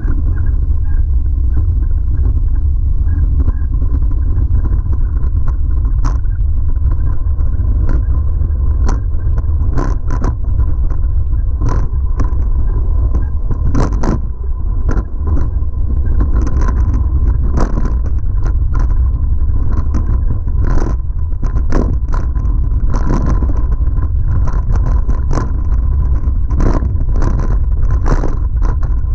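2011 Giant Trance X0 full-suspension mountain bike riding down a rough, rocky trail. Wind and vibration rumble constantly on the microphone, and the bike gives frequent sharp clicks and rattles as it rolls over loose rock, more of them from about halfway through.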